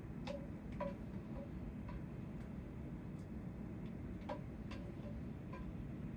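Light, irregular clicks and clinks of a utensil against dishware, about ten in six seconds, some with a short ring, over a steady low room hum.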